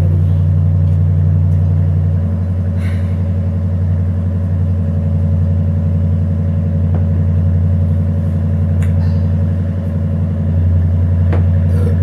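A loud, steady low hum, like a machine or electrical drone, with a few faint clicks over it.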